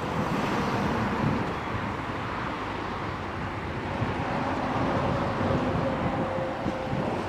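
JCB 3DX backhoe loader's diesel engine running under load as the machine works. A faint steady whine comes in about four seconds in.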